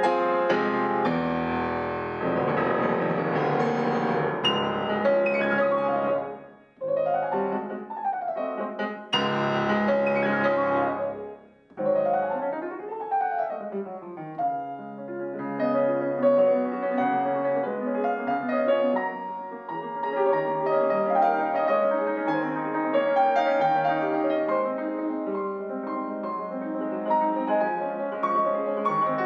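Fazioli F278 concert grand piano played solo. Full chords with deep bass open the passage, then runs sweep up and down the keyboard, broken by two brief pauses about seven and twelve seconds in. After that comes a steadier, flowing passage in the middle register.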